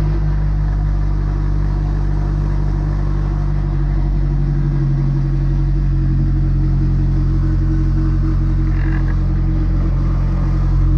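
Nissan S13's SR20 inline-four idling steadily, freshly started.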